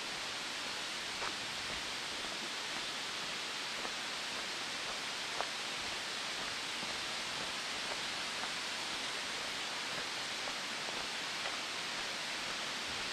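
Steady outdoor rushing hiss with no pitch, with a few faint small clicks, one a little louder about five seconds in.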